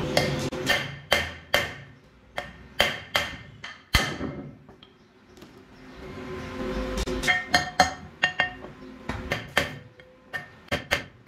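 Hand hammer striking a steel piece held in pliers against a flywheel, in quick irregular runs of metallic blows that ring after each strike, with a pause of a few seconds in the middle.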